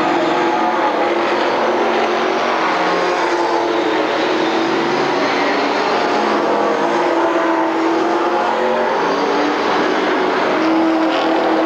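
A pack of stock cars racing around a short oval track, several engines running at once, their notes overlapping and rising and falling as the cars go by.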